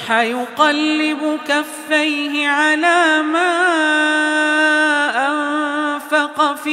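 Solo male voice reciting the Quran in the melodic tajweed style, drawing out the words in ornamented, wavering runs and holding one long steady note about four seconds in.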